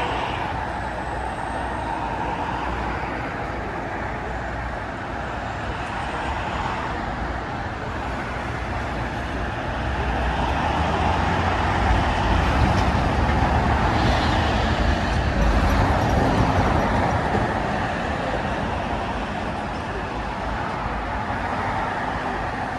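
Steady road and tyre noise of a car driving on an expressway, with a low rumble that grows louder for several seconds in the middle and then eases back.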